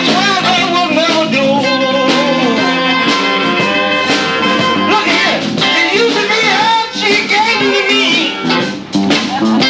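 A live band playing with electric guitar, and a singing voice or lead line wavering over it.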